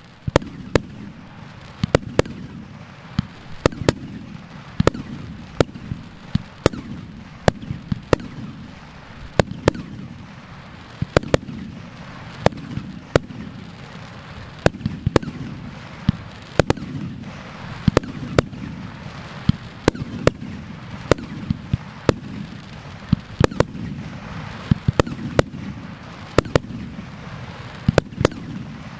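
Aerial firework shells bursting in a steady barrage, heard from a few hundred metres. Sharp bangs come about every half second to a second, some in quick pairs, over a continuous low rumble of echoing reports.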